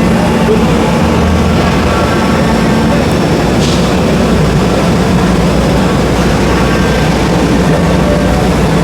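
CNC router running and machining, a loud steady mechanical noise with a low hum, mixed with the general machine din of a busy exhibition hall. A brief hiss sounds about three and a half seconds in.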